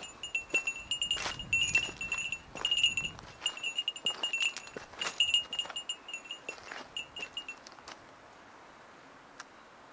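Footsteps crunching over loose stones, with a small bell jingling in time with the steps. Both stop near the end.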